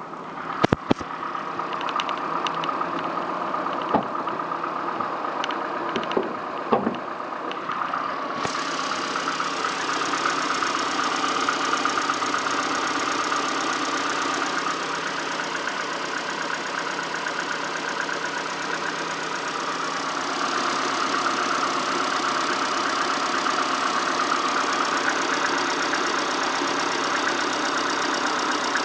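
Peugeot/Citroën TU5 four-cylinder petrol engine idling with a fast, even knock running through it, the knock whose cause the owner is asking about. A few sharp clicks come in the first seven seconds, and the sound turns brighter and a little louder about eight seconds in.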